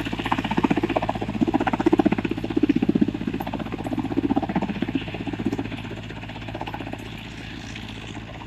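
Helicopter rotor beating rapidly over a steady engine hum, growing quieter from about halfway through.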